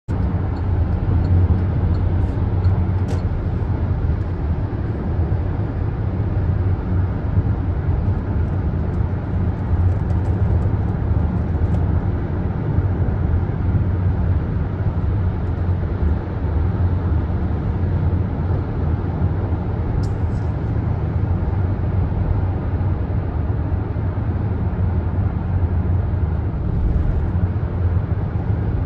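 Steady deep rumble of road and tyre noise from a car cruising at highway speed, heard from inside the car, with a few faint ticks.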